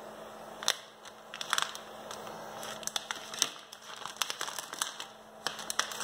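Plastic courier mailer bag crinkling and tearing as it is pulled open by hand, in a series of sharp, irregular crackles over a low steady hum.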